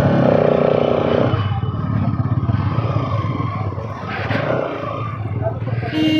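Bajaj Pulsar NS200's single-cylinder engine running through its stock exhaust as the motorcycle is ridden. A short, steady tone sounds near the end.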